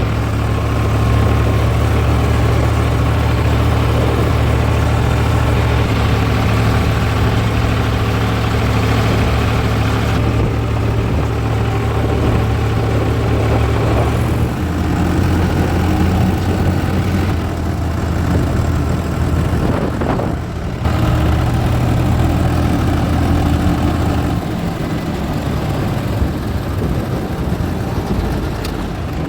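Diesel engines of a JCB 3DX backhoe loader and farm tractors running steadily. The engine note changes about halfway through and again near the end.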